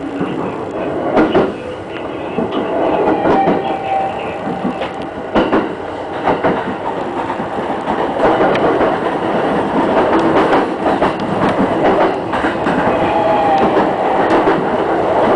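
E217 series electric train running, heard from inside the leading car: steady running noise with irregular clickety-clack as the wheels pass over rail joints and pointwork.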